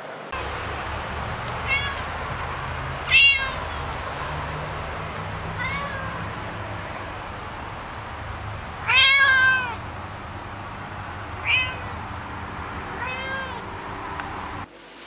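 A cat meowing about six times, each meow rising and then falling in pitch. The meows about three seconds in and about nine seconds in are the loudest, and the second of those is the longest, drawn out for most of a second.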